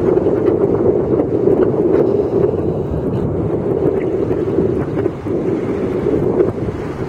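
Wind buffeting a camera's built-in microphone at the seashore: a steady, rough rushing noise with a brief dip about five seconds in.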